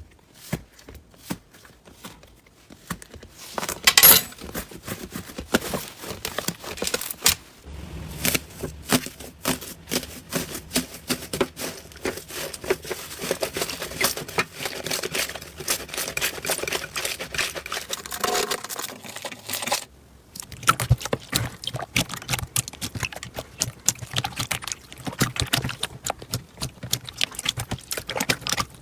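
Slime being squeezed, stretched and poked by hand, with dense irregular crackles and small pops. The sound breaks off briefly about two-thirds of the way through, then carries on.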